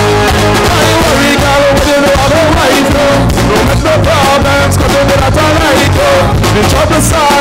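Live band music: electric bass and a drum kit playing a steady beat under a held melody line that bends in pitch now and then.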